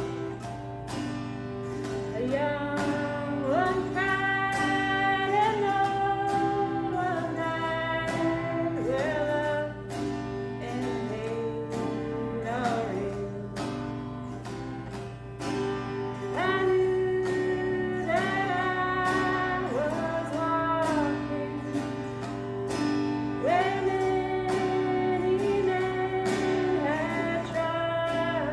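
Autoharp strummed in steady chords while a woman sings a slow melody of sliding, held notes.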